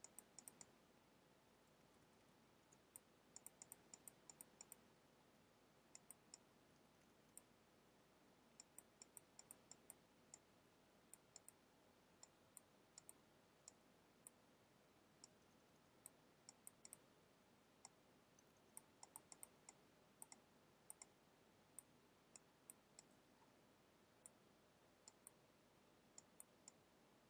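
Near silence with faint, sharp clicks from a computer's input device, scattered irregularly and often in quick little groups, while the brush is worked across the image.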